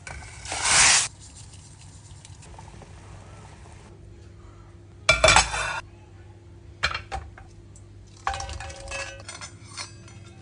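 Dishes, pots and utensils clinking and clattering in irregular bursts, the loudest about half a second in and again about five seconds in, over a steady low hum.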